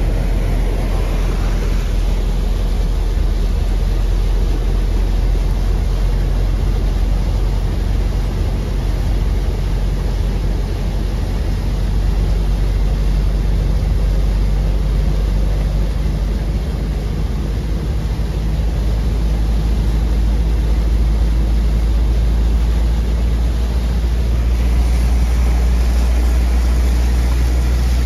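Car driving slowly through floodwater, heard from inside the vehicle: a steady low engine and road drone, with water swishing and spraying at the wheels for the first couple of seconds.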